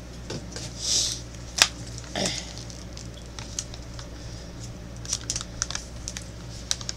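Plastic candy snack-pack tray being handled: a run of small clicks and crinkles, with a sharp click about a second and a half in.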